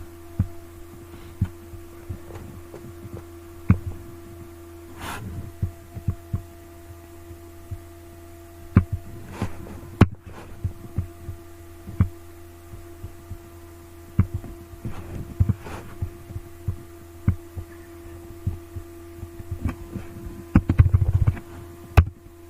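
Steady low electrical hum with scattered, irregular clicks and light knocks. The sound drops out briefly twice.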